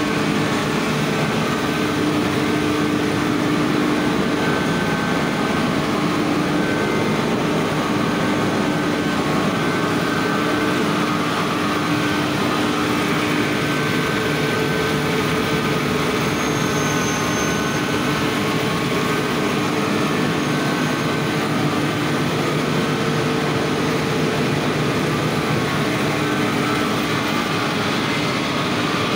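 Cotton-opening machines running steadily, with their beaters, belt drives, electric motors and blower fan giving a dense, unbroken mechanical noise with a low hum and a fainter whine over it.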